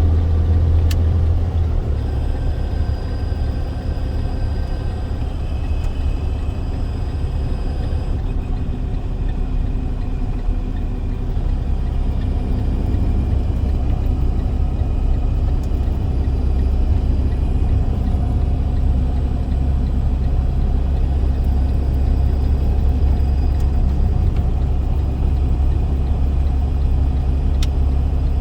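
Box truck's engine and road noise heard from inside the cab: a steady low drone that drops about two seconds in and comes back up around eleven seconds in.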